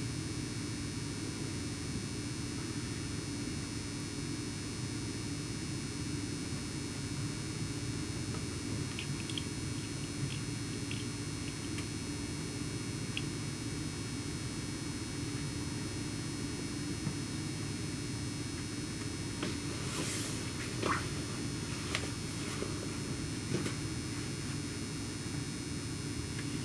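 Steady hum of a Nagano Electric Railway 1000-series 'Yukemuri' electric train standing at a station with its onboard equipment running, heard from inside the car. A few faint clicks come about a third of the way in, and a brief rustle with several knocks comes about three-quarters of the way through.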